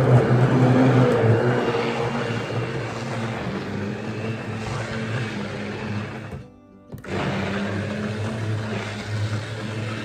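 Handheld immersion blender running in a plastic tub of fruit and coconut-milk drink, its motor humming steadily as the blade churns the liquid. It cuts off briefly about six and a half seconds in, then starts up again.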